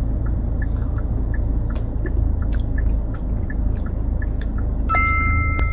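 Steady low hum of a car's interior with the engine running, with a faint regular ticking about three times a second. Near the end comes a click, then a steady two-tone electronic beep held for about a second.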